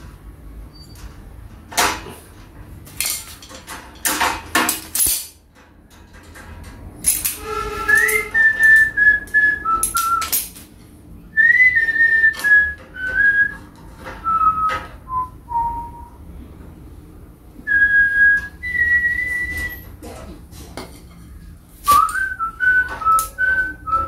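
A person whistling a tune in short phrases, starting about a third of the way in, over sharp clinks and knocks of metal hand tools (locking pliers and a screwdriver) working on a steel sewing-machine stand frame.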